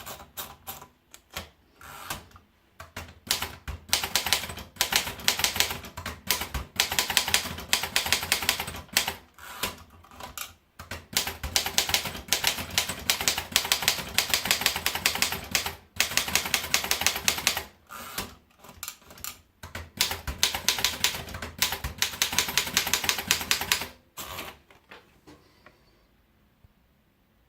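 Erika Model 9 manual typewriter being typed on: a few scattered keystrokes, then long runs of fast key and typebar clacks with short pauses between them. The typing stops a few seconds before the end.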